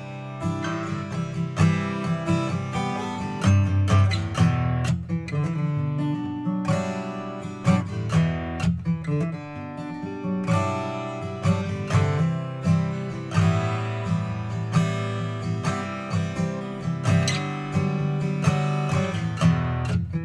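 Background music: a strummed acoustic guitar track, playing steadily.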